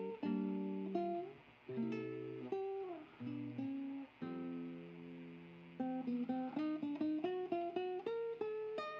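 Background music on a plucked guitar: sustained chords with a few sliding notes, then a quicker line of short single notes over the last few seconds.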